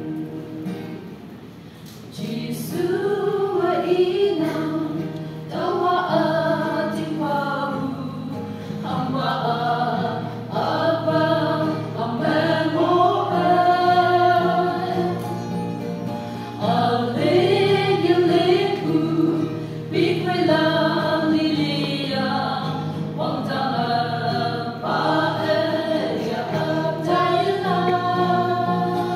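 A choir sings a gospel hymn over steady sustained accompaniment. The voices come in about two seconds in and sing in phrases of a second or two.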